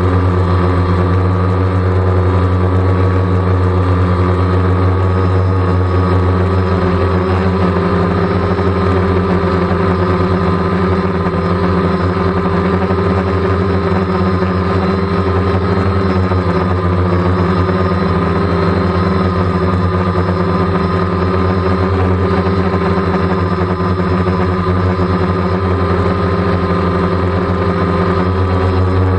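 DJI Phantom quadcopter's propellers and motors humming steadily while it hovers, loud and close on its onboard camera.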